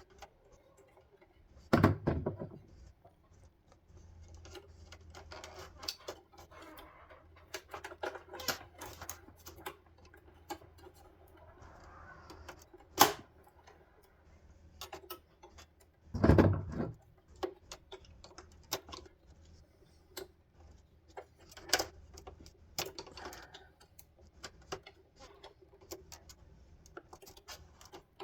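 Scattered small clicks and taps of plastic car-headlight parts being handled and pried apart, with a louder knock near the start, a sharp snap shortly before halfway, and another louder knock just after it.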